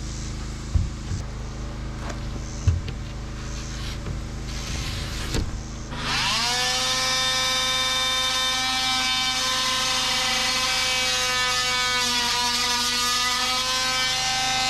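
A few short knocks, then about six seconds in a handheld electric power tool's motor spins up and runs at a steady high whine, its pitch dipping briefly once under load.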